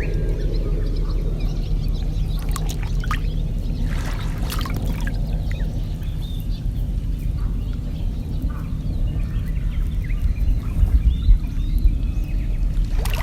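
Kayak paddle water sloshing and dripping, with a few brief splashes a few seconds in, over a steady low rumble; faint bird calls.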